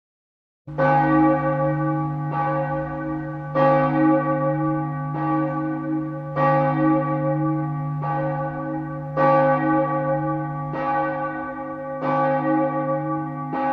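A church bell tolling, about ten slow, evenly spaced strokes, each ringing on into the next. It starts about a second in.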